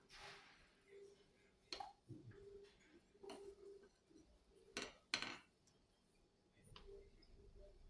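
Faint, scattered clinks and taps of kitchen utensils and dishes being handled, with a few sharper knocks about five seconds in.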